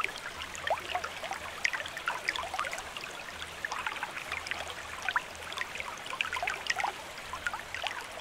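Water trickling and babbling like a small stream: a dense, irregular patter of short plinks and gurgles over a soft hiss.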